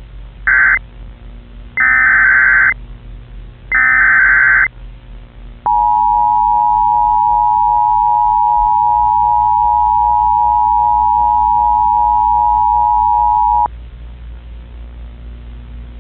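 Emergency Alert System tones: three short bursts of the SAME digital header's screeching data tones, then the two-tone attention signal held steady for about eight seconds and cutting off, heralding a severe thunderstorm warning.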